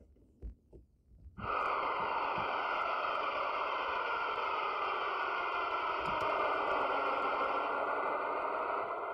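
A steady hissing noise, with no pitch or beat, starts suddenly about a second and a half in, after a few faint low thumps.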